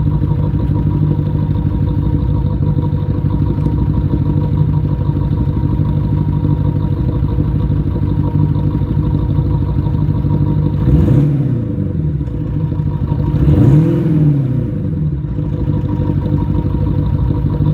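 Active sound generator module playing a synthetic Audi SQ7 engine sound: a steady idle, with two short revs in the second half that each rise and fall in pitch.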